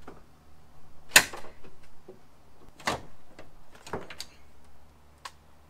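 A few sharp clunks and clicks, the loudest about a second in, from an SN95 Ford Mustang's driver door and hood latch being worked as the hood is released and opened.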